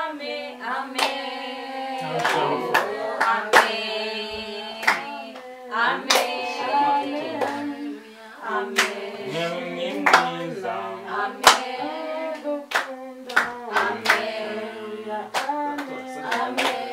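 Voices singing a church worship song, with hand claps roughly once a second.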